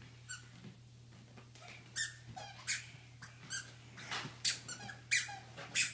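Squeaky toddler shoes letting out a short, high squeak with each step as a small child walks. The squeaks come sparsely at first and faster from about four seconds in.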